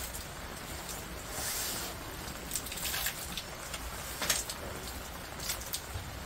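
Rain falling steadily with a hiss, with a few sharp taps of drops landing close by, the loudest a little past the middle.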